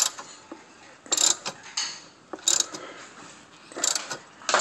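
Ratcheting wrench clicking in short bursts a little over a second apart as it turns the forcing screw of a three-jaw puller. The puller is drawing off a tight, rusted crankshaft pulley (harmonic balancer).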